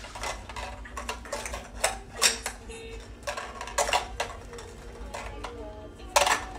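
Small hard plastic toys being handled: irregular clicks, clacks and knocks as pieces are dropped into and knocked against a plastic toy truck, with louder knocks about two seconds in and near the end.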